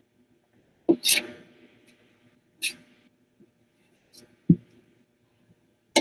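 A few scattered soft knocks and short hissy rustles over a quiet room, with a sharp click at the very end.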